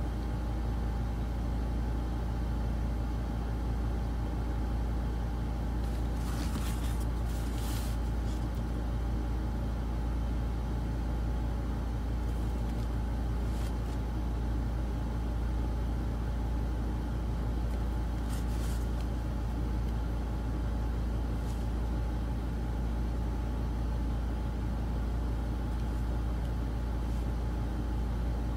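Steady low background rumble with a faint steady whine above it, unchanging throughout; a few brief soft scratchy sounds come through twice.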